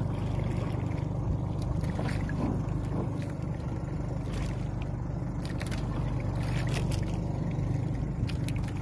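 Steady low rumble of wind and water around an outrigger fishing boat at sea, with scattered light knocks.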